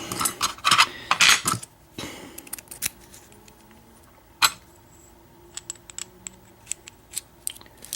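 Small metal parts of an American 700 padlock clicking and clinking as it is taken apart by hand. There is a quick cluster of clicks at the start, a sharper knock about halfway through, and a run of light ticks near the end.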